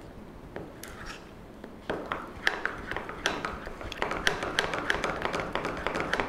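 Wire whisk beating thick gram-flour batter in a glass bowl: the wires tick and clink rapidly against the bowl. A few scattered clicks at first, then fast and steady whisking from about two seconds in.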